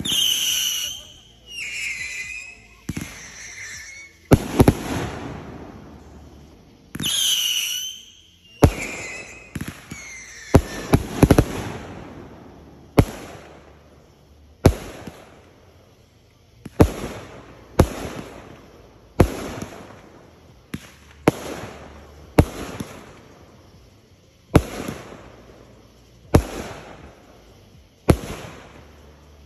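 Consumer aerial fireworks going off in a series of sharp bangs as shots launch and burst. Longer rushing bursts come in the first ten seconds, then single bangs about every second or two.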